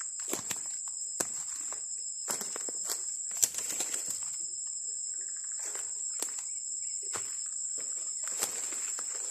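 Footsteps rustling and crunching through forest undergrowth in irregular strokes, with an occasional sharp snap. Behind them is a steady, high-pitched insect drone.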